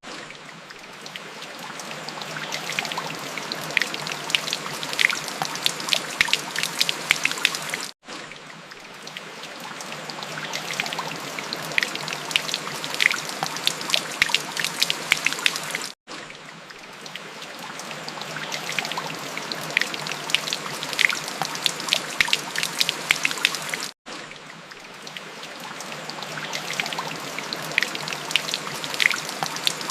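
Steady rain with many distinct drops ticking close by. The recording repeats every eight seconds, with a brief dropout at each seam before the rain swells back up.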